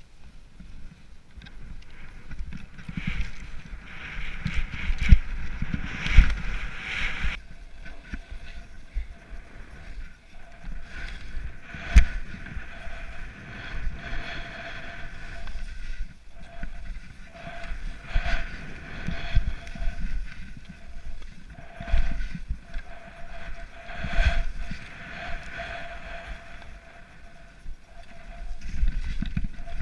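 Skis running through deep powder snow, with wind buffeting the body-worn camera's microphone. Irregular low thumps come through, the loudest about 5, 6 and 12 seconds in.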